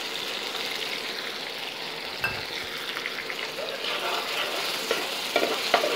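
Masala sizzling in hot oil in a nonstick frying pan, with a little water just added, while a metal slotted spatula stirs and scrapes it. There is a sharp click about two seconds in and a few more near the end.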